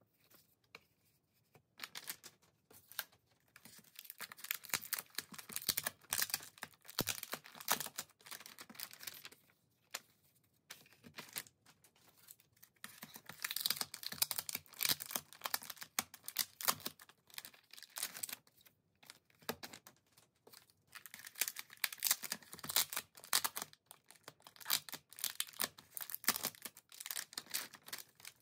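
Crinkly foil-lined plastic snack-bag-style album pouches being torn open and handled, in repeated bursts of rustling and tearing with short pauses between them.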